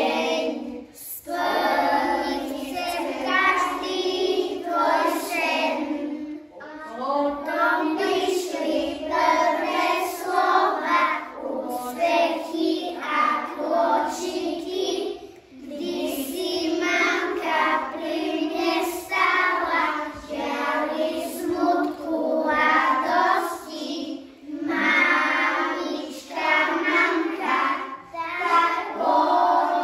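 A group of young children singing a song together in unison, with brief pauses between lines.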